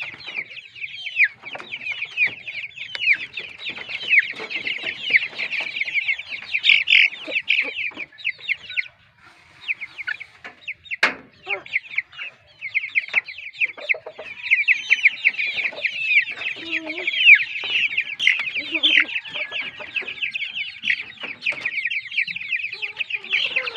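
Chickens clucking over a dense, continuous chorus of high peeping, which thins out for a few seconds in the middle. A single sharp click sounds about halfway through.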